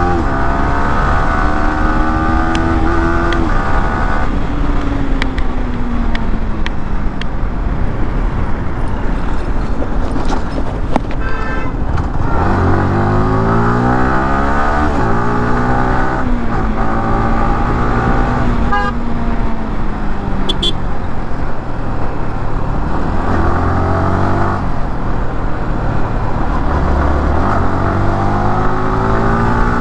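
Yamaha R15M's single-cylinder 155 cc engine under way, its pitch climbing in several runs through the gears and dropping at each shift, with spells of easing off where the note falls slowly.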